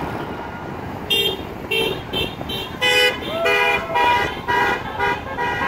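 Passing cars' horns honking in a string of short toots, about two a second, starting about a second in, over the steady noise of road traffic. The honks signal support for roadside protesters.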